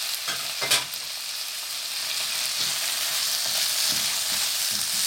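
Chopped onion and tomato sizzling in hot ghee in a kadai, stirred with a slotted wooden spatula: a steady frying hiss under soft scrapes, with one sharp knock just under a second in.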